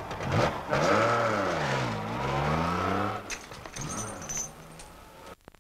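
Car engine running with its pitch falling and then rising again, as if easing off and accelerating; it fades over the last couple of seconds and cuts off abruptly.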